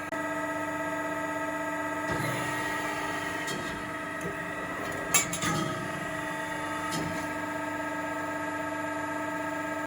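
AMADA HFBO hydraulic press brake running with a steady pitched hum, with several light metallic clanks and clicks, the loudest about five seconds in.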